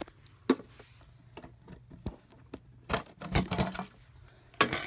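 Handling noise at a plastic hamster cage: scattered clicks, knocks and rattles, thickest in a cluster about three seconds in and again near the end.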